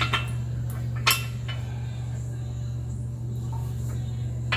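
A few sharp metal clinks and knocks, the loudest a little over a second in, as the end of a hydraulic top link and a hand tool are worked against a steel top-link bracket. A steady low hum runs underneath.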